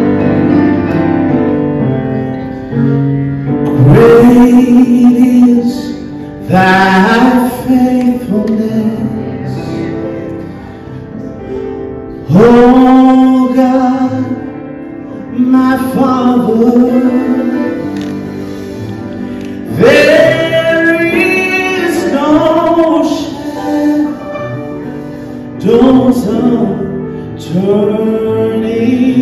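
A man sings a solo gospel song into a handheld microphone over instrumental backing. His long sung phrases come in loud swells with quieter stretches between them.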